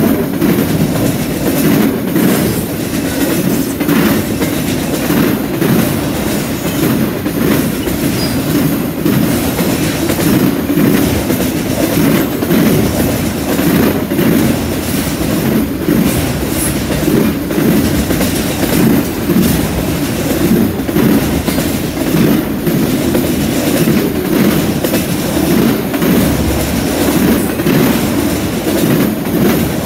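Freight train autorack cars rolling steadily past close by: a continuous heavy rumble of steel wheels on rail with a regular clickety-clack about once a second.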